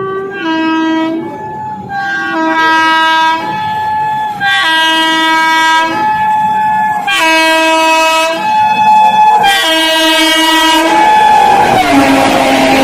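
Train horn sounding a repeated two-tone pattern, switching back and forth between two chords about once a second. Near the end a noisy rush of the passing train builds up under the horn.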